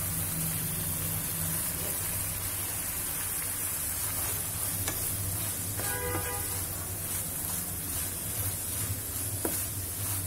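Masala sauce sizzling in a frying pan as boiled fusilli pasta is added and stirred in with a wooden spatula, with a few sharp clicks of the spatula against the pan.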